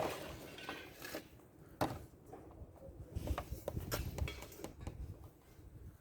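A sharp knock, then two more clicks about a second and two seconds in, followed by scattered light metallic clinks.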